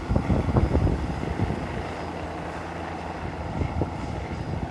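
A distant helicopter carrying a survey cable over a river, its rotor and engine making a steady low drone. Louder irregular rumbles come over it in the first second and a half.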